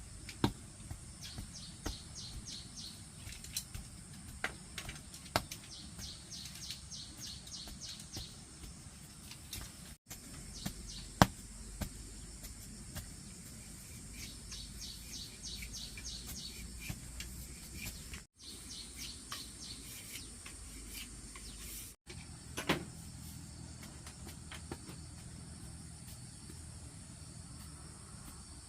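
Insects chirping in repeated trains of rapid high pulses over a steady high insect hiss, with scattered sharp knocks, the loudest about eleven seconds in.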